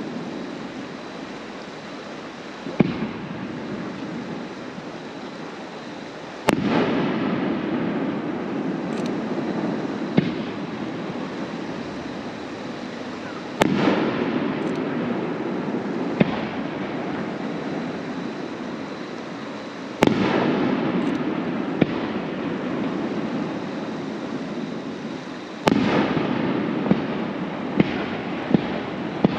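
Aerial fireworks shells bursting, a loud bang every few seconds, each followed by a long rumbling echo. Near the end comes a quick run of sharp cracks.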